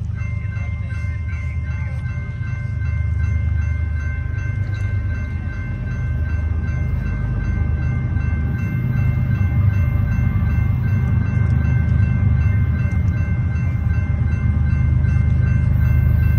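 A train running with a steady deep rumble, and a steady high tone held over it throughout.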